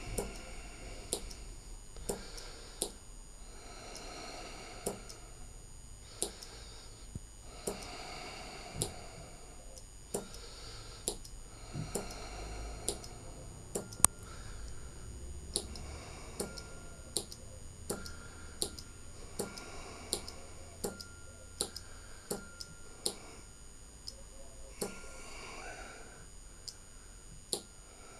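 Momentary push-button switch clicking as it is pressed and released over and over, about one sharp click a second at uneven spacing.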